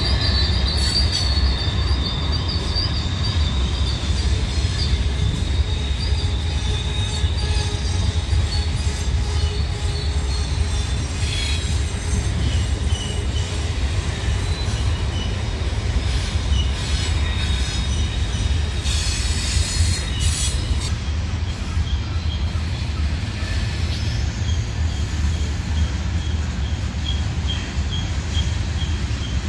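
Norfolk Southern coal train rolling past downhill on a curve: a steady low rumble of wheels on rail, with high, wavering squeal from the wheel flanges that comes and goes.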